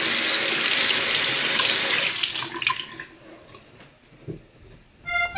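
Bathroom sink faucet running, a stream of water splashing into the basin, dying away about three seconds in. Music starts just before the end.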